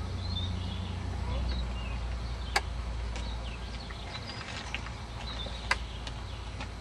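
Outdoor ambience: birds chirping now and then over a low steady rumble, with two sharp clicks about three seconds apart.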